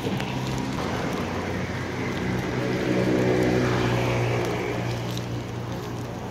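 An engine running with a steady low hum, growing louder toward the middle and easing off near the end.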